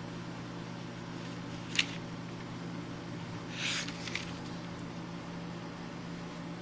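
Steady hum of an electric desk fan, with a short sharp tap a little under two seconds in and the rustle of a thin Bible page being turned about four seconds in.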